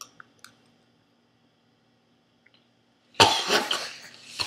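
A few faint clicks, then about three seconds in a sudden loud cough that blows a mouthful of dry ground cinnamon out of a girl's mouth. More coughs follow near the end. This is the typical choking reaction of the cinnamon challenge.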